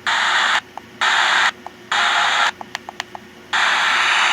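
Eton AM/FM weather radio hissing with between-station static, muting for a moment four times as it is stepped through the tuning or presets, with a short beep or click in each gap and a quick run of several near three seconds in. The static then carries on steadily.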